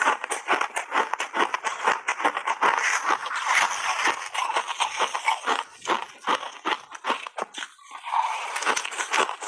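Crushed ice crunching and crackling in quick, dense bites, mixed with the grainy crunch of ice crystals squeezed and scooped by hand.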